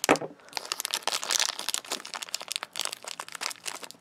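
Crinkling and tearing of a toy blind-bag wrapper as it is torn open and unwrapped by hand, with rapid irregular crackles.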